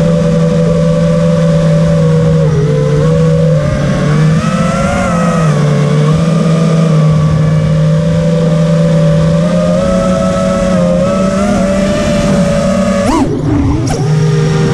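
Mini FPV quadcopter's brushless motors and propellers running on a 4S battery, a steady whine whose pitch shifts up and down with the throttle. Near the end the pitch drops sharply and sweeps back up as the throttle is chopped and punched.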